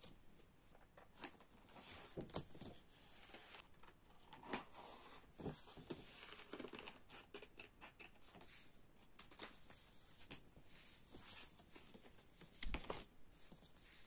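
Scissors cutting through calendar paper in a run of short, uneven snips, with the paper rustling and crinkling as it is turned and handled.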